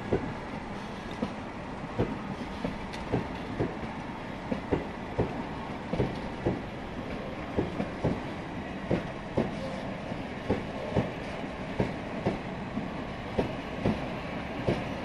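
Freight train wagons (covered boxcars and tank wagons) rolling past, with a steady rumble of wheels on rail. Sharp clacks from the wheels over rail joints come every half second to a second, often in quick pairs.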